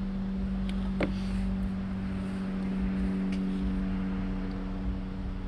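Electric motor of an RV's powered entry steps running free with no load on it, a steady hum, with a sharp click about a second in.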